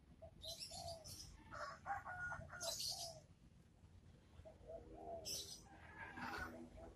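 Faint bird calls: a string of short, soft low calls, with a few louder mid-pitched calls and several brief high chirps scattered through.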